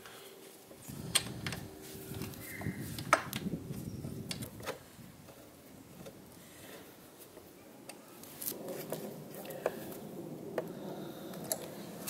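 Scattered sharp clicks and knocks over soft rustling, from hands handling parts at a motorcycle's rear wheel and axle.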